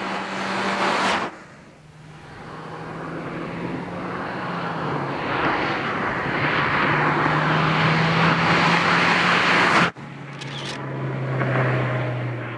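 Mazdaspeed3's turbocharged four-cylinder engine and tyres as the car drives by, a steady engine note in cut-together takes. A short take cuts off about a second in, a second grows louder as the car approaches until a sudden cut near the end, and a last one fades out.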